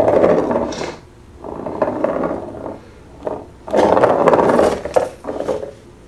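Plastic ball rolling and rattling around a plastic cat circuit track toy, in several runs of about a second each with short pauses between.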